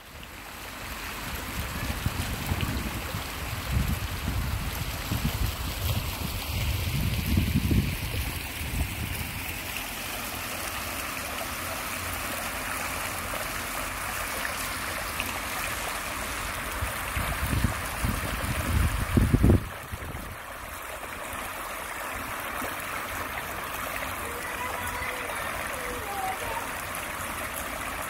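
Bubbler fountain jets splashing into a shallow stone pool, making a steady rush of falling water. Low gusts of wind rumble on the microphone twice, once a few seconds in and again before the two-thirds mark.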